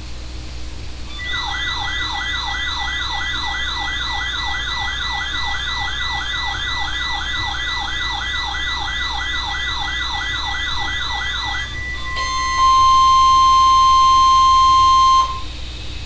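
Several NOAA weather alert radios (12-991, 12-996 and WX-150) sounding their alarms together: a warbling siren-like alarm of quick falling sweeps, about three a second, under a steady high beep, lasting about ten seconds and signalling a received test alert. Then a loud steady tone of about 1 kHz for about three seconds.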